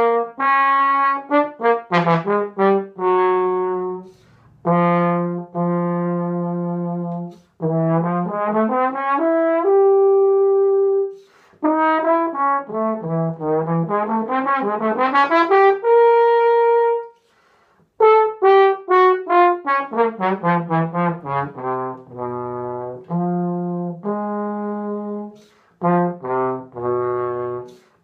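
Solo trombone playing unaccompanied: quick runs of short notes broken by a few long held notes, with brief pauses, the longest about seventeen seconds in.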